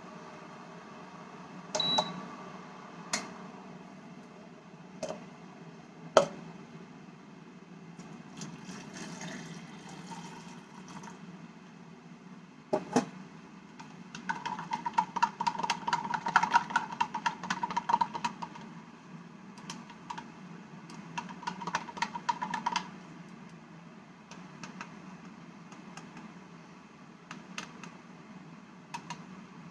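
Kitchen handling sounds while black coffee is made: scattered clicks and knocks and a short high beep about two seconds in. Then two runs of rapid ringing clinks, the longer one about halfway through and a shorter one a few seconds later, as a spoon stirs instant coffee in a cup. A low steady hum runs underneath.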